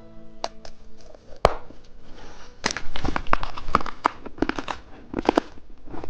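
Plastic candy packaging crinkling and tearing, with one sharp click about a second and a half in and then a dense spell of crackly rustles over the next few seconds.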